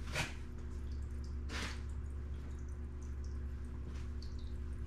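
Aquarium filter trickling water with scattered small drips over a steady low hum. Cloth rustles briefly twice, near the start and about a second and a half in.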